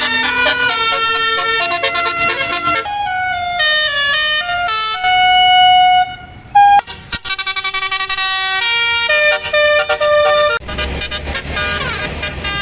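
Tour buses' Basuri telolet horns playing melodies of held notes that step up and down in pitch, with a brief break about six and a half seconds in. Near the end a low engine rumble comes in under the horns and one note glides downward.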